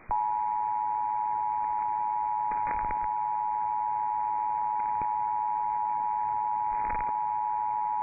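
Emergency Alert System attention signal: the two-tone alert (853 and 960 Hz together) sounding steadily, heralding a flash flood warning. It is heard over AM broadcast radio from a web SDR, thin and band-limited with a hiss underneath, and a couple of faint static crackles, about three seconds in and near the end.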